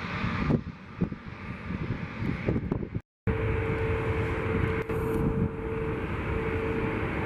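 Boeing 757 jet engines running, a steady rumble. It breaks off briefly about three seconds in, and after the break a steady whine sits over the rumble.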